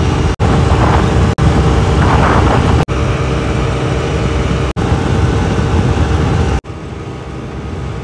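Honda Activa 110cc single-cylinder scooter engine running at speed, about 75 km/h, with a steady drone under heavy wind rush on the microphone. The sound cuts out for an instant about five times, and near the end it steps down to a quieter engine and wind noise.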